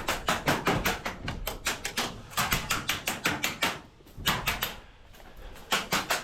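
Airsoft gun firing on full auto: a rapid run of sharp shots at about ten a second, with a long burst, then a short burst about four seconds in, and another starting near the end.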